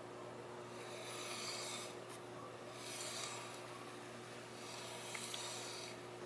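Faint rubbing and swishing noises in three swells, over a steady low hum.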